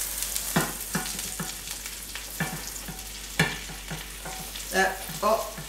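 A spatula scraping and knocking against a non-stick frying pan as a browned cauliflower-and-egg bake is slid out onto a plate, over a soft sizzle from the still-hot pan. A few short squeaky scrapes come near the end.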